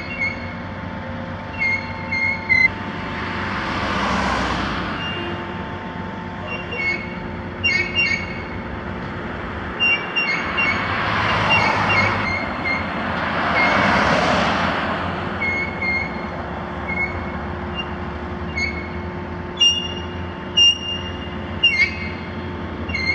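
Cars passing on the road close by, each one swelling up and fading away: one about four seconds in, then two more close together later on. Under them runs a steady low engine drone, and short high-pitched chirps come and go throughout.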